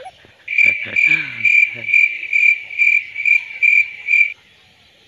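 Cricket chirping, a high pulsing chirp about twice a second that starts and stops abruptly, with a brief low sound under its start.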